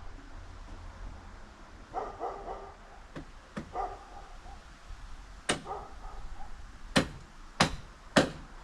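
A dog barks in short bursts a few times among sharp knocks of a hammer striking deck lumber. About six blows are heard, most of them close together in the second half.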